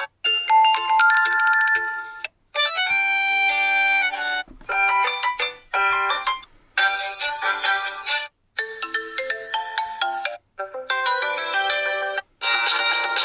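Meizu M5s default alarm tones played one after another. It is a series of short electronic ringtone melodies, each cut off after about two seconds with a brief silence before the next.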